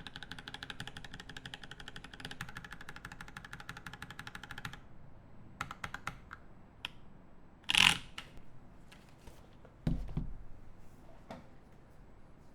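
Typing on a mechanical keyboard with lubed Boba U4T 62g tactile switches in a brass plate under GMK keycaps: a fast, even run of keystrokes for the first few seconds, then a few separate keystrokes. A louder clack comes near 8 s and a low thud about 10 s in.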